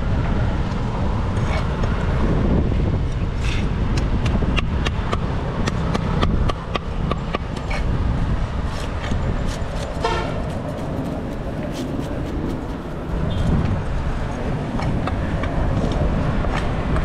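Large knife scraping scales off tilapia on a wooden chopping block: a run of quick scratchy clicks over a steady low rumble of road traffic. A vehicle horn toots briefly about ten seconds in.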